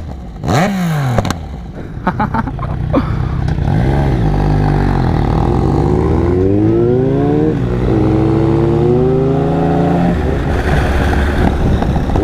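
Two motorcycles, one a three-cylinder Yamaha MT-09, blipped in a quick rev at a standstill, then accelerating hard away together. The engine note climbs steadily and drops at upshifts about four and six seconds after they set off.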